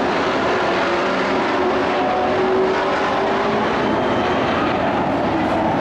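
Engines of a field of racing pickup trucks running laps on an oval track, several engines blending into one steady drone.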